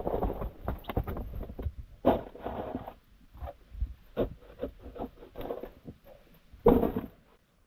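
Handling noise: irregular rustles, scrapes and light knocks, with one louder scrape shortly before the end, after which it drops almost to silence.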